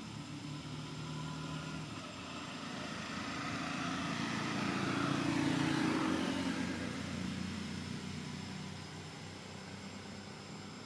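An engine passing by, steadily humming, growing louder to a peak about halfway through and then fading away.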